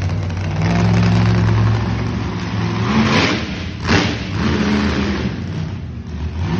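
Monster truck engine revving hard: a steady held rev for about two seconds, then sharp throttle blips, with a sudden loud bang about four seconds in.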